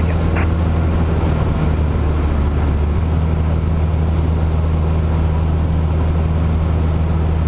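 Light aircraft's engine and propeller running steadily in level flight: a constant low drone heard inside the cabin.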